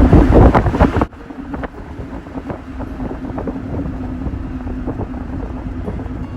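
Moving vehicle: loud wind rush stops suddenly about a second in, leaving a quieter steady engine and road drone with a low hum.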